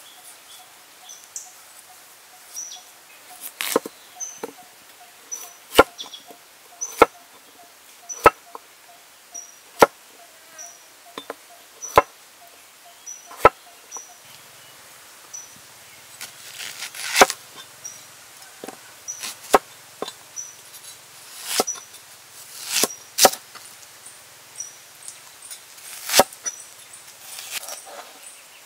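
Large cleaver chopping potato on a wooden board: single sharp knocks of the blade striking the wood, one every second or two, starting a few seconds in.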